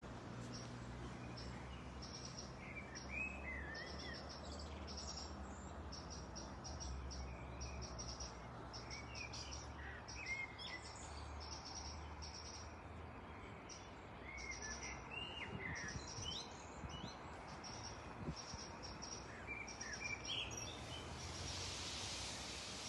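Birdsong: scattered short chirps that rise and fall in pitch, over a steady high chirping that comes in quick repeated trills like insects, with a faint low hum beneath.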